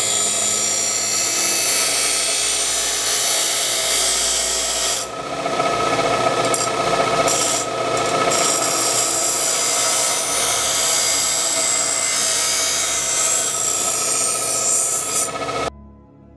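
Bench grinder's abrasive wheel grinding a steel knife blade, a loud steady grinding noise over the motor. It briefly dips about five seconds in and cuts off suddenly near the end.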